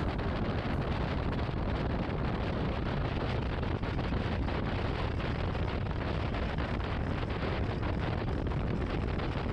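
Steady wind rush on the microphone of a camera riding on a moving motorcycle, over a low, even rumble of the bike and road.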